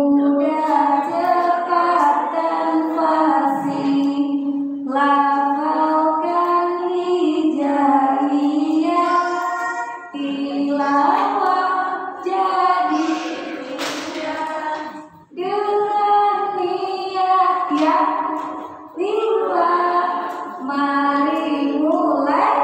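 A woman singing a simple teaching song into a hand-held microphone, in phrases of a few seconds with short breaks between them.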